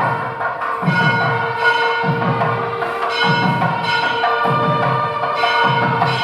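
Background music with percussion and bell-like tones over a steady held drone, with a low beat repeating about every second and a quarter.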